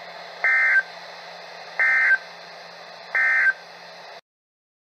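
NOAA Weather Radio's EAS end-of-message signal: three short, buzzy digital data bursts, about 1.3 s apart, over steady radio hiss and a low hum. The hiss cuts off suddenly about four seconds in as the broadcast audio ends.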